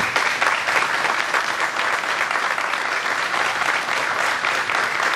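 A congregation applauding, many people clapping at once in a steady patter.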